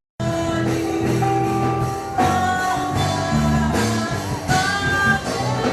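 Worship music with singing and guitar. It starts after a split-second break in the sound.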